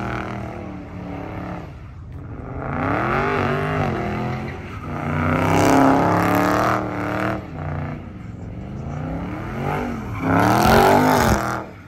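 Dodge Charger doing smoky donuts, its engine revving up and down in repeated surges as the rear tyres spin. The loudest surge comes near the end, then the engine drops away sharply.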